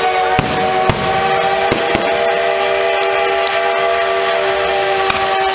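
Fireworks going off: several sharp bangs in the first two seconds and another near the end, over a steady, many-toned horn-like chord that holds without changing pitch.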